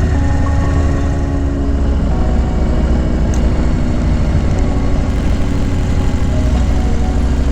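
2020 Harley-Davidson Low Rider S's Milwaukee-Eight 114 V-twin engine running steadily.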